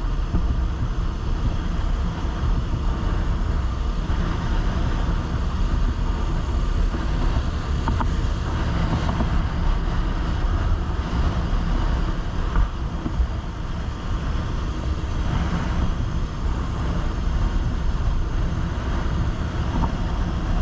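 Wind buffeting the microphone on a moving motorcycle: a steady low rumble of wind and road noise.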